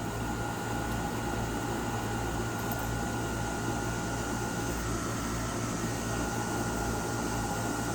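Steady low mechanical hum with a constant hiss and a faint steady higher tone, unchanging throughout, with no distinct knocks or calls.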